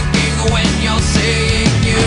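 Loud rock music with a dense, steady band sound.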